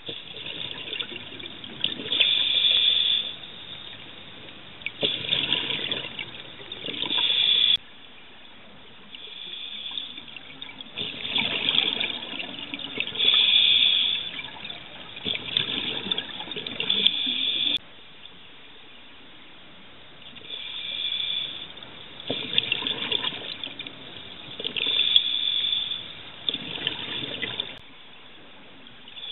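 Scuba regulator exhaust bubbles recorded underwater: bubbling in bursts of a few seconds with short quieter pauses between, following the diver's breathing.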